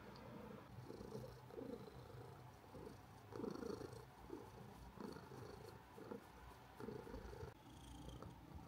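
Domestic orange tabby cat purring softly while being scratched on the cheek, the purr swelling and fading in repeated pulses with its breathing, strongest about three and a half seconds in.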